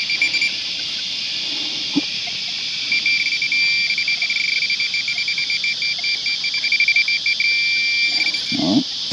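Metal-detecting pinpointer beeping in rapid, even pulses at one high pitch as it is worked in the dig hole over a buried target: briefly at the start, then again for about four and a half seconds from about three seconds in. A steady high hiss runs underneath.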